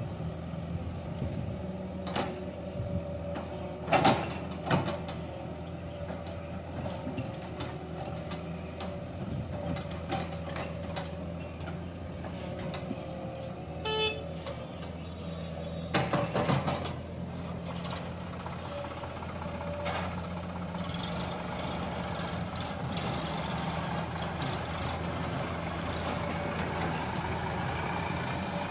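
Diesel engines of a tracked excavator and a Sonalika tractor running steadily. Loud thuds sound as bucketloads of earth and rocks drop into the tractor's steel trolley, around 4 s, 16 s and 20 s in, with a short beep at about 14 s. Near the end the tractor's engine note rises as it pulls the loaded trolley away.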